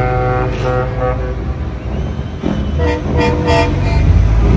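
Semi-truck air horns sounding: one short blast about half a second in, then a quick string of toots around three seconds in, over the low rumble of diesel engines passing, which grows loudest near the end.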